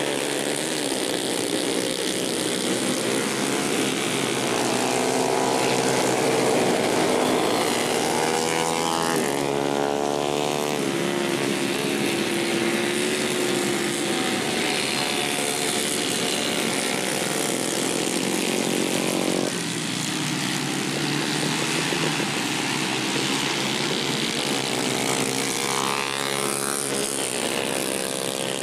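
Racing motorcycle engines revving hard as bikes accelerate past, the pitch climbing and falling as they speed up and shift, with a sudden drop in loudness about twenty seconds in.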